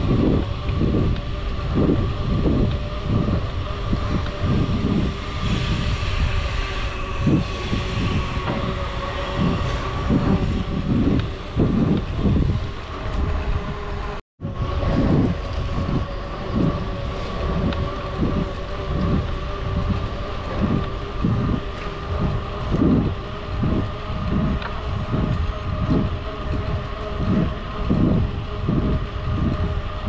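Bicycle riding noise on the camera's microphone: wind buffeting in an even, pulsing rumble over a steady hum from the moving bike. The sound cuts out for an instant about halfway through.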